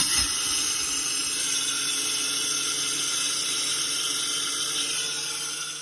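Miller 2500 electric grain mill switching on abruptly by its timer knob and running at high speed, its blades grinding a load of rye grain into flour: a steady, high-pitched whirring noise.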